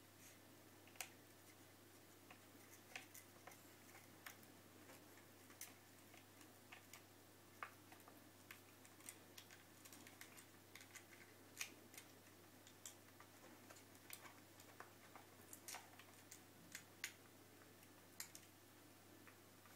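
Faint, irregular small clicks and crackles of chihuahua puppies chewing and nuzzling a stiff gold-patterned wrapper, over a faint low hum.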